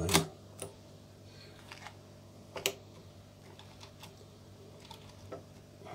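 A few small mechanical clicks from a knob on a Kiev 4 rangefinder camera being turned by hand to take up film slack while loading, with one sharper click about two and a half seconds in.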